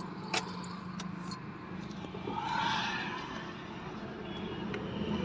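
A car ignition key is turned in the steering-column lock with one sharp click, against a steady low hum. A soft rushing noise rises and fades about two and a half seconds later.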